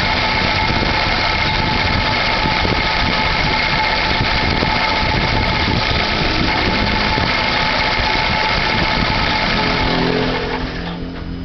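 Chevrolet Classic's engine idling with the clutch released, with a loud steady clutch-area noise of several high tones over the running engine; the noise goes away when the clutch pedal is pressed and a replaced clutch release bearing has not cured it. Near the end the noise dies down and the high tones fade.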